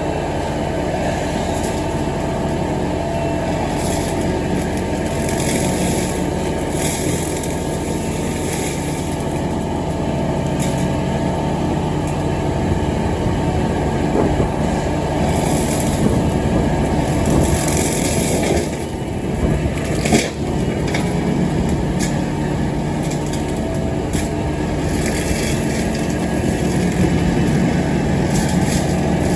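Tractor engine running steadily while mowing grass, with a brief dip in level and a single knock about two-thirds of the way through.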